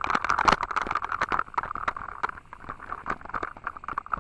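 Mountain bike rolling down a rough dirt-and-gravel track: a rapid, irregular clatter of knocks and rattles as the bike and camera jolt over stones, over a steady hiss of tyre and wind noise.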